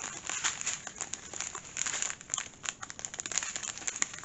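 Small clear plastic bags of round diamond-painting drills crinkling and crackling as they are handled, with a dense run of irregular little crackles.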